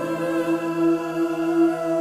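Background vocal music: voices holding long humming notes, like a choir, without words.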